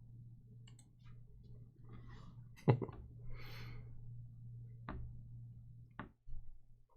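Trading-card boxes and packs being handled on a table: three sharp knocks, the loudest a little under three seconds in, with light rustling between them, over a steady low hum.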